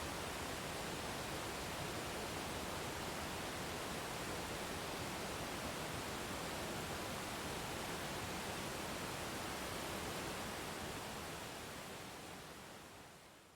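Waterfall: a steady, even hiss of falling water that fades out over the last couple of seconds.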